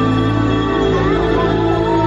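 Slow music of held chords, with a single melody line above them that bends in pitch. It is the soundtrack of a nighttime water-and-light show.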